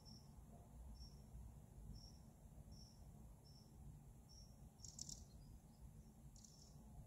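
Near silence with a small bird's faint high call repeated evenly, about one every three-quarters of a second, and two louder bursts of chirping past the middle, over a low steady rumble.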